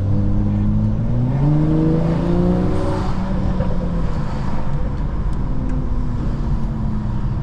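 Tuned BMW 435i's turbocharged N55 inline-six running under way, its revs climbing for about two seconds from about a second in, then holding steadier.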